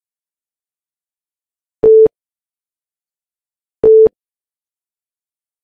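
Countdown timer beeping: two short electronic beeps of one steady pitch, about two seconds apart, one for each number of the countdown.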